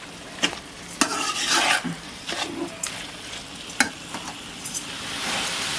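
Mutton liver frying with masala in oil, a spoon stirring it in the pan with a steady sizzle and several sharp knocks of the spoon against the pan. The sizzle grows louder near the end.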